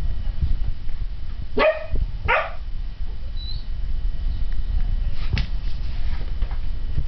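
A puppy barking twice, two short high barks less than a second apart about a second and a half in, then a single light knock a few seconds later.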